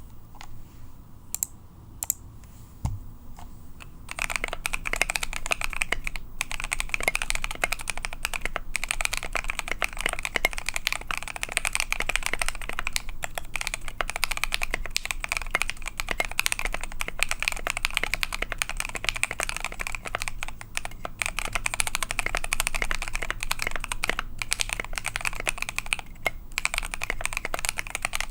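Custom KBD67 Lite R2 mechanical keyboard with stock, unlubed Gateron Cap Yellow V2 linear switches on a brass plate and KAT Specimen keycaps being typed on. There are a few separate keystrokes at first, then fast, continuous typing from about four seconds in, quite deep sounding.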